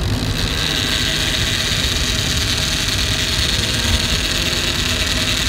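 Big conventional trolling reel loaded with wire line, its spool spinning with a steady high buzz as the line pays out, over the steady low drone of the boat's motor.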